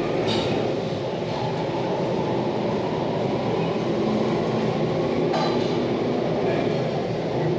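Steady low rumble of a busy restaurant's room noise, with a couple of sharp clinks near the start and about five seconds in.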